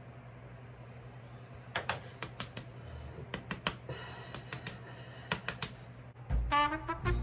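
A run of sharp, irregular clicks, much like typing on a keyboard, over a low steady hum; near the end, music with brass comes in.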